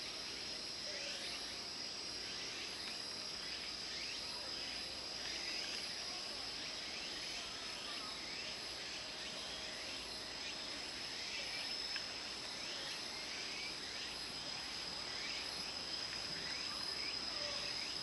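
Late-season tsukutsuku-boshi cicadas (Meimuna opalifera) singing in a chorus from the trees: a steady high tone with many short, repeated chirps over it. The calls sound weak, as they do late in the season.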